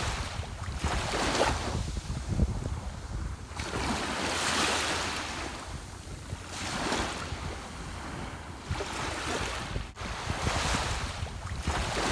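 Ocean waves breaking and washing up on the shore, surging and falling back every few seconds over a steady low rumble.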